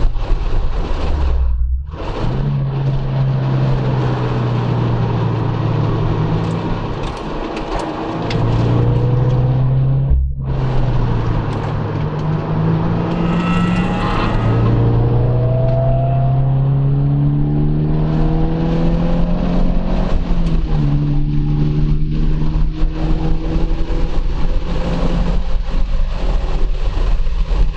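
2014 Subaru BRZ's flat-four engine heard from inside the car under hard acceleration. Its note climbs steadily in pitch and breaks off briefly at gear changes, about two seconds in, about ten seconds in and again near twenty seconds.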